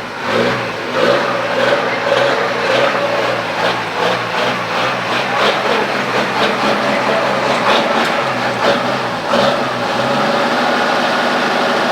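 A vehicle engine running with its revs rising and falling over and over, then holding steady from about ten seconds in.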